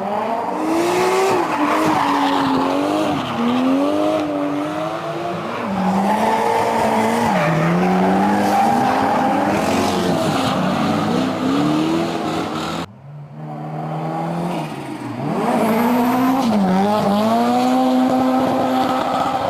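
Drift car engines revving hard, pitch climbing and falling repeatedly, with tyre squeal over them. The sound cuts abruptly to another car about 13 seconds in.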